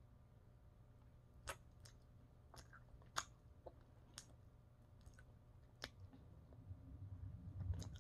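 Faint wet mouth clicks and smacks of a person eating a saucy chicken wing, biting and pulling the meat off the bone and chewing, a few separate clicks a second or so apart.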